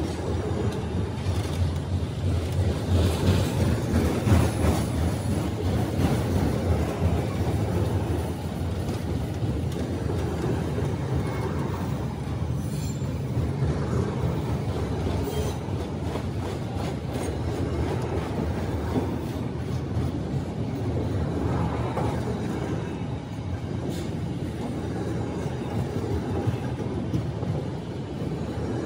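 Freight train of autorack cars rolling steadily past, with a continuous rumble of steel wheels on rail.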